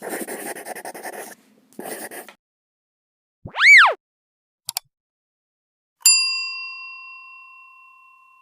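Edited intro sound effects: two short bursts of hissy noise, then a loud tone that swoops up and falls back, two quick clicks, and a single bell-like ding about six seconds in that rings on and slowly fades.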